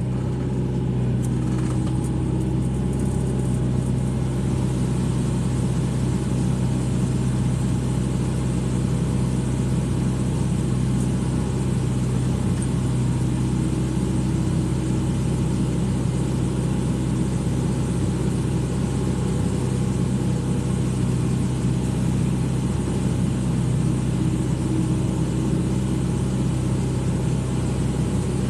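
Excavator's diesel engine running at a steady speed, a constant low hum with no pauses.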